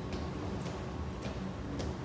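Sharp clicking footsteps, about two a second, over the steady low hum of a station platform.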